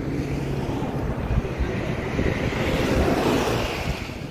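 Wind buffeting the microphone over a low, steady road-vehicle rumble, swelling a little in the second half.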